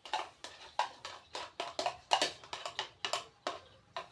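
Metal spoon knocking and clinking against a mixing bowl in a quick, uneven run of sharp taps, about three or four a second, as margarine is spooned into the dry flour mix.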